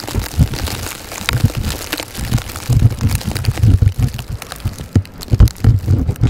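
Blizzard wind buffeting the microphone in irregular low gusts, with scattered light ticks mixed in.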